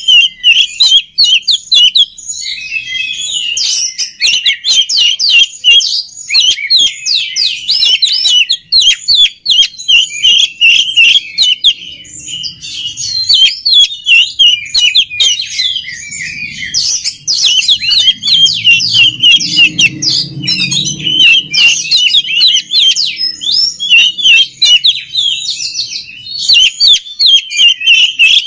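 Oriental magpie-robin (kacer) singing loudly in fast, varied runs of chirps and whistles, with a short lull about a third of the way in.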